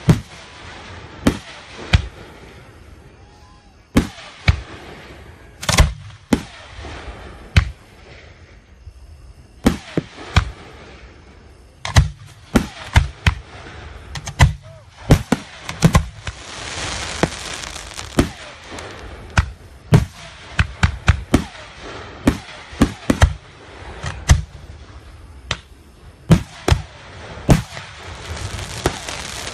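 Fireworks display: aerial shells launching and bursting in a long run of sharp bangs at uneven intervals, some in quick clusters. A stretch of steady hiss comes a little past halfway and again near the end.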